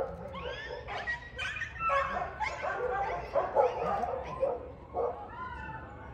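Dog barking, yipping and whining in quick, repeated calls, some rising and falling in pitch.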